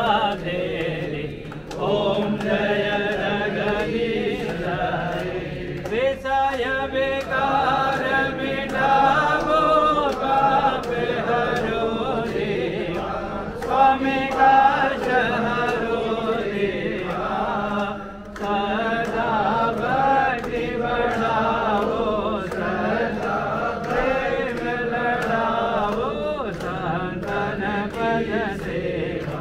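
A group of voices singing a Hindu aarti hymn together, with sharp regular taps keeping time.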